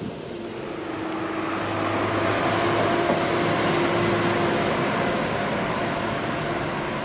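Tractor engine running with a steady hum, swelling over the first few seconds and then easing off a little.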